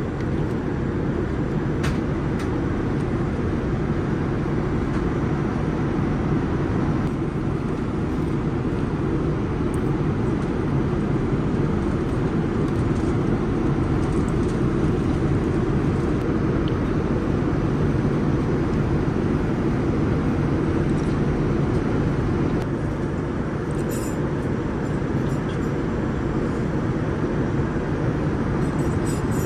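Steady in-flight cabin noise of a Boeing 787-9 airliner: an even low rumble of engines and airflow, with a few faint light clicks.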